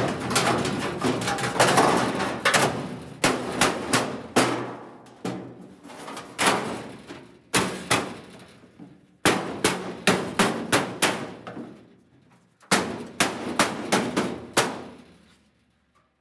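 Mallet blows on sheet-metal floor pans being seated in a truck cab floor: runs of sharp, clanging strikes, some in quick clusters of about four a second, with the steel ringing after each hit.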